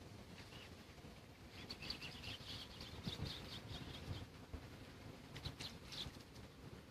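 Birds giving quick, high chirping peeps in a rapid series starting about a second and a half in, then a short burst again near the end, faint over a low background hum.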